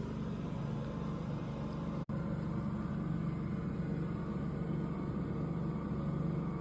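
Steady low mechanical hum, cut off for a split second about two seconds in.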